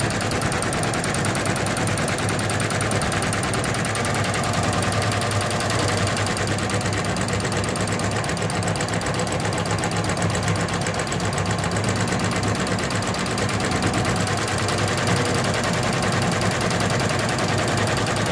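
Osaka computerized multi-needle embroidery machine running, its needle stitching a design into fabric with a rapid, even, steady clatter.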